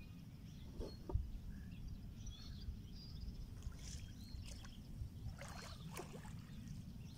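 Inflatable rowboat being rowed: oars dipping and splashing, with a few sharp knocks of the oars in their locks, over a steady low rumble.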